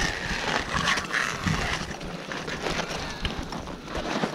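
Close-up crunching, scraping and small knocks of crampons and ice tools against waterfall ice, with clothing and gear rustling, from a climber on the ice.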